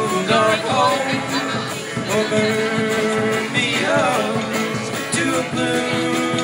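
A band playing with a man singing: upright bass and acoustic guitar under the vocal line.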